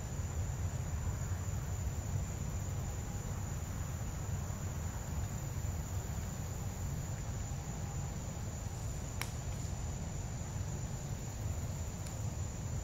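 Outdoor ambience: a continuous high-pitched insect drone over a low rumble, with a single sharp click about nine seconds in and a fainter one near the end.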